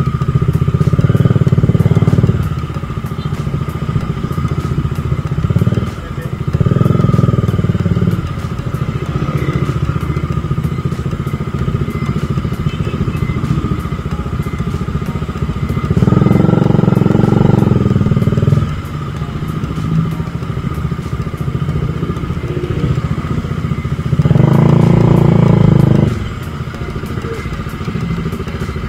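Bajaj Dominar 400's single-cylinder engine running under way at a steady pitch. The sound swells four times for about two seconds each, near the start, around a quarter of the way in, past halfway and near the end, then drops back to the steady hum.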